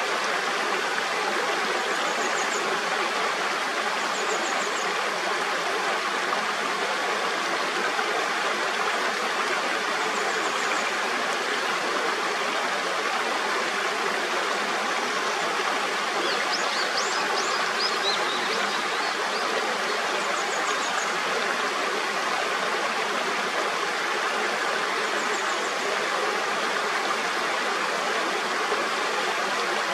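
Clear mountain stream rushing steadily over rocks. A few faint high chirps come in about halfway through.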